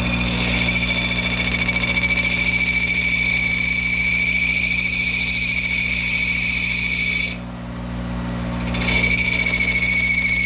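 A lathe cutting tool squealing against a steel shaft in one long, high, steady screech. It breaks off about seven seconds in and starts again shortly before the end, with the lathe's steady hum underneath. The squeal comes as the tool cuts through a work-hardened surface layer.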